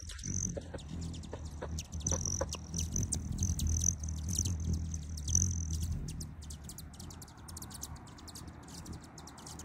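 Hummingbird wings humming as a bird hovers at a hand-held feeder, with a high buzzing note that comes and goes and many quick high chips. The wing hum stops about six seconds in, once the bird has perched, and the chips go on.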